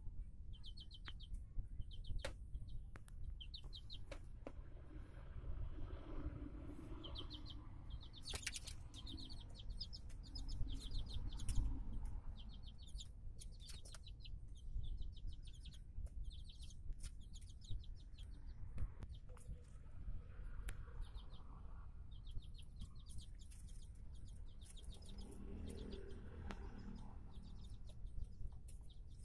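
Small village chicks peeping, in quick runs of short high peeps that keep coming, with an adult chicken clucking low now and then.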